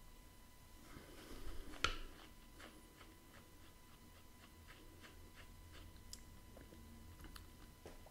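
A sip of whisky from a tasting glass with a sharp click, then faint wet mouth clicks, about two or three a second, as the cask-strength whisky is held and worked around the mouth.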